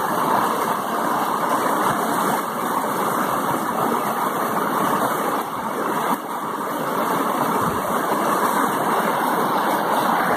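Mountain stream cascading over rocks: a steady, loud rush of splashing white water.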